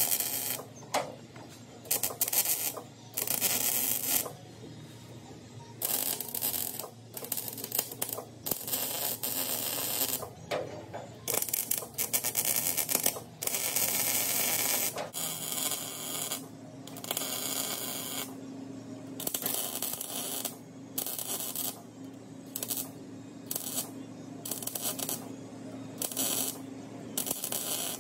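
Wire-feed welder crackling in short bursts with brief gaps as stitch welds are laid along the seam of a shortened steel pickup bed. A low steady hum comes in about halfway through.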